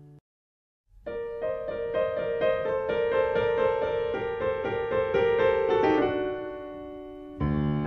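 Background piano music. It comes in about a second in with a quick run of repeated notes, settles on a held chord that fades, and a fuller, lower chord enters near the end.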